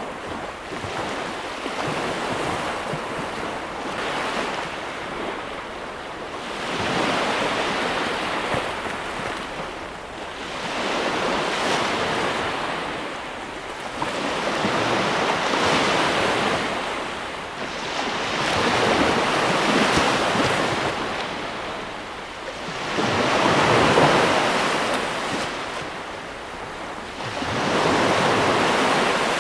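Sea waves breaking and washing on a shore, each wave swelling up and falling away about every four seconds.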